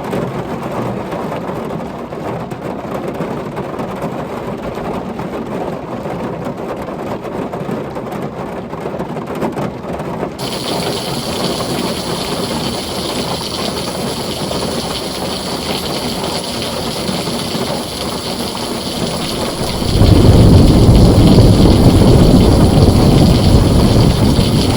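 Heavy rain drumming steadily on a tin roof. The high hiss of the rain brightens abruptly about ten seconds in, and near the end a loud, deep thunder rumble sets in and keeps rolling.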